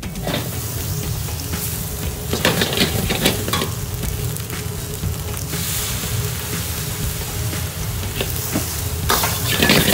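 Fried rice sizzling in a large wok while a metal wok ladle stirs and scrapes it against the pan, with repeated scraping strokes that come thicker near the end.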